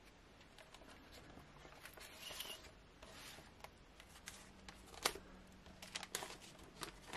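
Faint rustling of an old scrapbook's paper page being turned and handled, the taped newspaper clippings crinkling, with scattered light ticks and a sharper tick about five seconds in.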